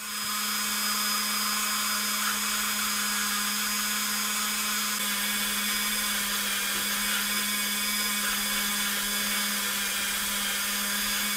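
Dremel rotary tool running at a steady speed with a brass-brush-type bit, scrubbing polish over a diecast metal car base. It comes up to speed just at the start, then holds an even hum with a hiss of the brush on the metal.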